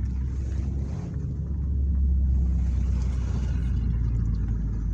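Car being driven, heard from inside the cabin: a steady low engine and road rumble that grows a little louder about a second and a half in.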